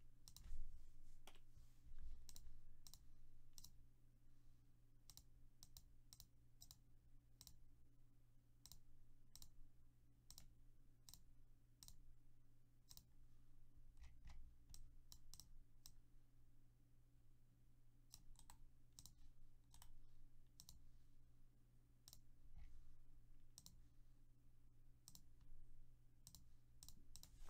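Faint, irregular clicking of a computer mouse and keyboard, a single click here and there and short clusters between pauses, over a steady low hum.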